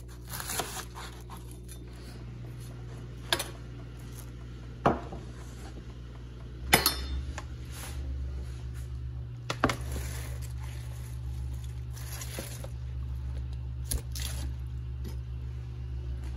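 Scattered knocks and clatters of kitchen work, a knife on a plastic cutting board and a bowl being handled, as chopped cabbage is gathered up. A steady low hum runs underneath.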